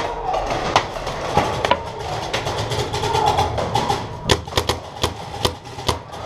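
Paintball markers firing: a scattering of sharp pops, coming faster and louder from about four seconds in.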